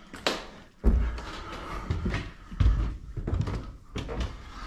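A series of knocks and thuds, the loudest about a second in.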